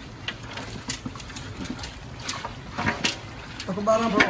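Cooked chicken pieces in masala tipped from a metal basin onto rice in a large biryani pot: soft wet patter with scattered light clicks and taps.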